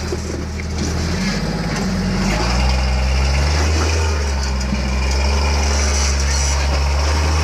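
Jeep engine running under load while rock crawling, revving up a little over two seconds in and held at the higher revs.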